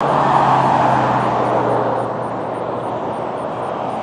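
A road vehicle passing close by: a loud rush of tyre and engine noise with a low hum, loudest in the first two seconds and then easing off a little.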